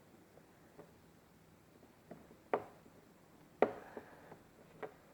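A handful of short, irregular clicks and light knocks from plastic dashboard trim and hand tools being handled during disassembly, the loudest about two and a half and three and a half seconds in.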